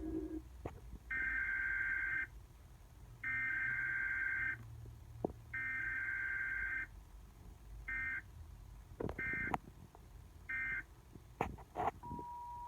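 Electronic beeps at one fixed pitch: three long tones about a second apart, then three short ones, with scattered sharp clicks. A steady lower tone starts near the end.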